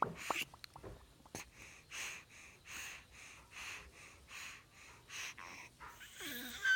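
A baby of nearly seven months making a run of rhythmic breathy huffs, a little more than one a second, with a few small clicks at the start and a brief voiced squeak near the end.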